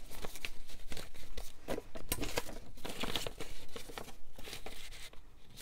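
Paper scraps and book pages rustling and crinkling as they are handled and shuffled, in a string of irregular crackles.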